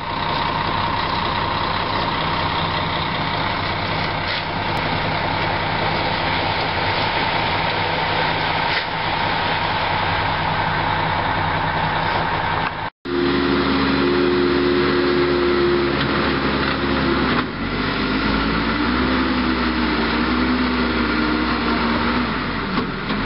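Heavy diesel construction machinery running: a steady engine drone, broken by a sudden cut about halfway through. After the cut a lower engine note carries on and starts to rise and fall in pitch a few seconds later, as working equipment does under load.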